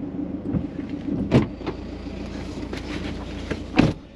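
Toyota Prado idling, heard from inside the cabin, a steady low hum. Two sharp thumps cut across it, about a second in and near the end.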